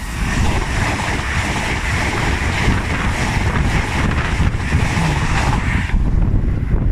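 LNER express passenger train passing the level crossing at speed: a loud, steady rush of wheels and air that cuts off about six seconds in as the train clears. Wind buffets the microphone throughout.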